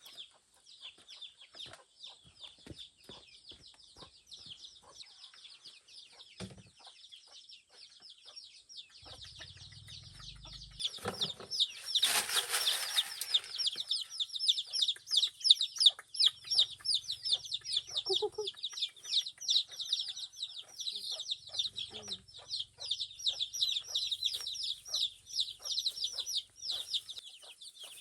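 A flock of chickens peeping and clucking without a break, a dense run of high, rapid peeps. About 11 seconds in, a louder rushing noise rises for two or three seconds, then the peeping carries on.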